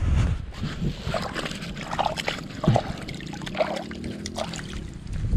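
Footsteps in rubber flip-flops on wet mud at a lake's edge: a string of irregular wet scuffs and slaps.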